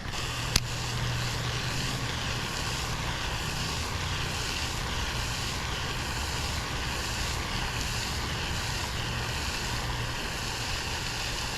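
A steady low engine drone under an even hiss, with one sharp click about half a second in.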